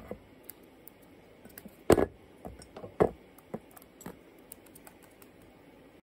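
Scattered light clicks and taps of a cockatiel moving about among ceramic dishes on a table. The sharpest comes about two seconds in, with another a second later.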